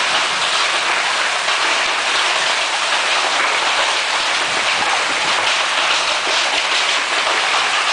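Heavy hailstorm, golf-ball-size hailstones hammering down: a loud, steady, dense rush of countless impacts.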